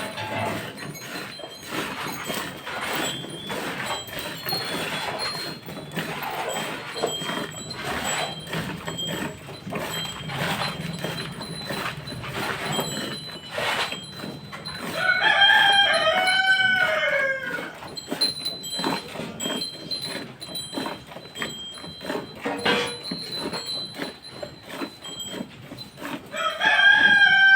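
A rooster crowing twice, about ten seconds apart, each crow lasting about two seconds and falling in pitch at its end, over irregular clicks and knocks.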